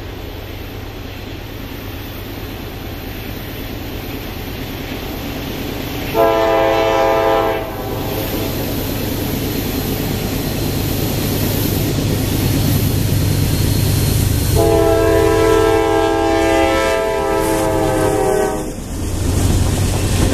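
An approaching diesel freight train, its locomotive air horn sounding a chord twice: a shorter blast about six seconds in and a longer one about fifteen seconds in, over the engine and rail rumble, which grows louder throughout. Near the end the double-stack container cars roll past, wheels clacking on the rail joints.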